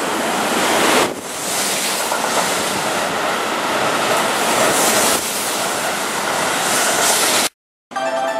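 Keihan 3000 series electric multiple-unit train, set 3006, running past close by along the platform: a steady, loud noise of wheels on the rails. It cuts off suddenly near the end.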